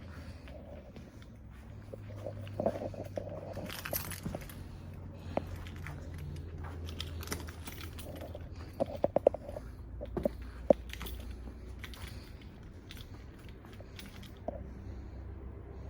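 Scattered clicks, knocks and crunching sounds of parts or tools being handled, with a quick run of sharp clicks about nine seconds in, over a low steady hum.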